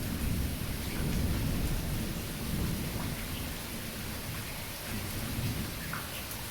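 Heavy tropical-storm rain falling steadily, with scattered drop ticks under a low rumble that slowly eases.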